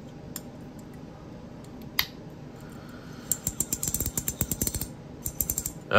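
Hearthstone V2 ratchet fidget coin being turned by hand, fitted with a swapped-in ratchet of a different strength: two single clicks, then a fast run of ratchet clicks, about eight a second, in the second half.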